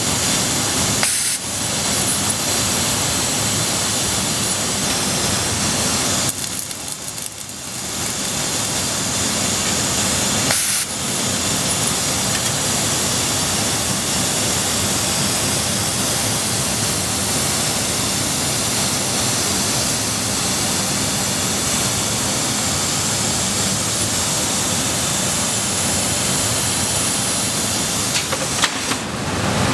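A 2000 Trumpf L3030 CO2 laser cutter cutting sheet metal, a steady loud hiss from the cutting-gas jet at the nozzle. The hiss drops away briefly a few times, longest for over a second about six seconds in.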